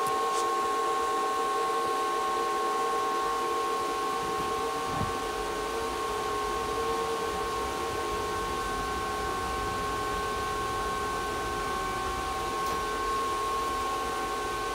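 Steady fan whine from running cryptocurrency-mining hardware: several held tones over an even rushing hiss. A single soft knock about five seconds in as a miner is handled.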